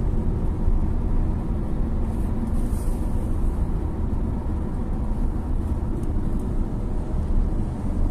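Steady low road rumble of a car driving on a highway, heard from inside the cabin.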